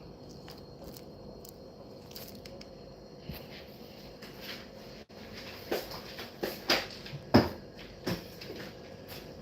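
Several sharp knocks and clatters of objects being handled and set down, bunched together in the second half, the loudest about seven seconds in, over a low steady background hum.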